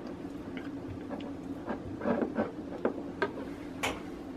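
Metal spoon clinking and scraping against a glass dish as soft homemade butter is pressed into it: a string of light, irregular clicks, with a sharper clink near the end.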